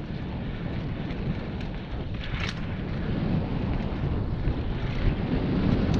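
Wind buffeting the microphone of a mountain biker's camera during a downhill trail ride, mixed with the steady rumble of the bike rolling over dirt, and a few faint clicks and rattles.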